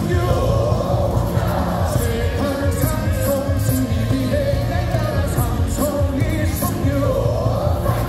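Baseball stadium cheer song: loud amplified music with singing, running without a break.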